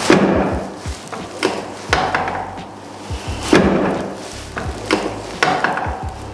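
A series of sharp knocks and thumps as a chiropractor adjusts a patient's lower back on a treatment table, several strikes at uneven intervals.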